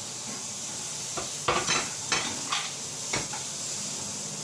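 Onion and chopped tomato sizzling in a frying pan with a steady hiss. A spatula stirs them, knocking sharply against the pan about six times.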